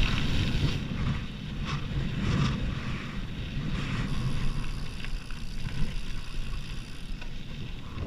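Wind buffeting the microphone of a gravel bike's rider riding into a headwind, over a steady low rumble of the tyres rolling on a gravel path.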